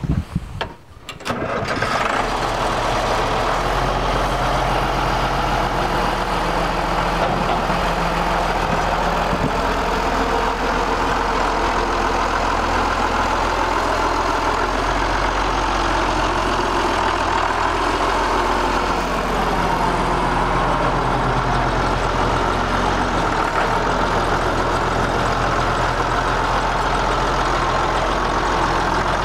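1981 White 2-105 tractor's diesel engine being cranked and catching about a second and a half in, then running steadily.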